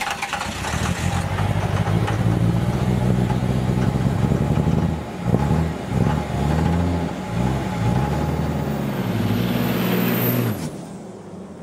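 A vehicle engine running, its low note steady at first, then shifting up and down in steps through the middle before it dies away near the end.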